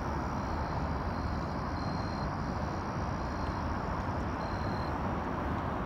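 Steady, even rushing background noise with no distinct events, and a few faint short high-pitched tones now and then.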